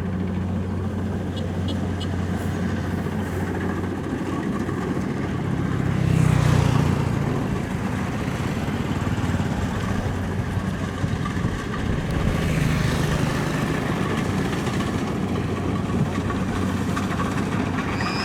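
Kubota DC-70 combine harvester's diesel engine running steadily under load, swelling louder twice, about six and about twelve seconds in.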